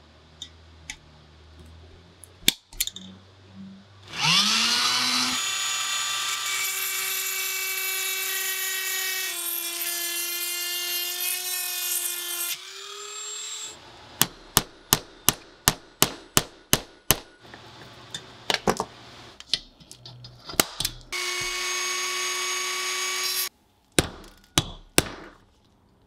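A power drill spins up and runs steadily, its pitch dropping slightly partway through as it bites, drilling into a rivet of a rusty Swiss Army knife. It is followed by about a dozen sharp hammer taps on a steel punch, about four a second, driving the rivet out. Then come a second short drill run and three more taps.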